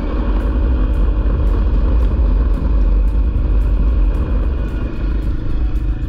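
Honda CRF250L's single-cylinder engine running steadily at cruising speed on a dirt road, mixed with heavy wind rush on the helmet microphone.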